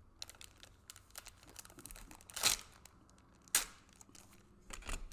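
Plastic bags around Gunpla model kit runners crinkling and rustling as they are handled, with two louder crackles about a second apart midway through.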